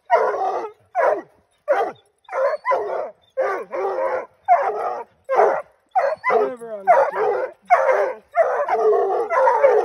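Coonhounds tree-barking up a tree in a rapid string of loud barks, with a long falling bawl about six seconds in. This is the bark that signals a raccoon treed.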